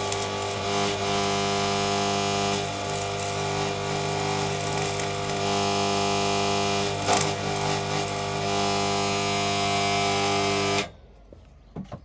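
Stick welding arc from a Draper MMA inverter welder: a steady hiss and crackle over a buzzing hum, cutting off suddenly near the end as the arc is broken.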